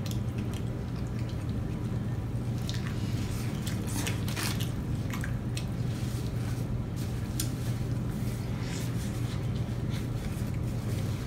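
Two people chewing mouthfuls of burger, with wet smacking mouth sounds and scattered short clicks, over a steady low hum.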